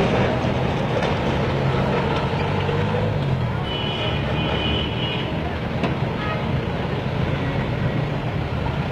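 Motor tram running in street traffic: a steady engine rumble with rolling noise, and a brief high squeal about four seconds in.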